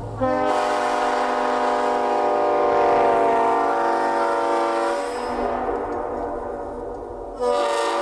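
Nathan Airchime K5LLA five-chime locomotive air horn blowing its chord. One blast holds for about five seconds and then trails off, and the horn is blown again near the end.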